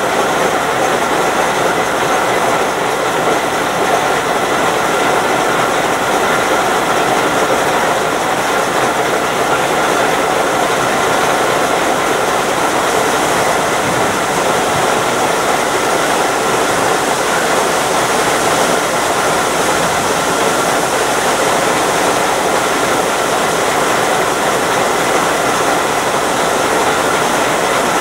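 TU4 narrow-gauge diesel locomotive standing with its V12 diesel engine idling steadily.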